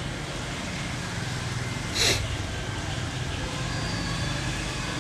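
Steady outdoor city background of distant traffic rumble with faint voices, broken about two seconds in by one short, sharp sound rising in pitch, the loudest moment.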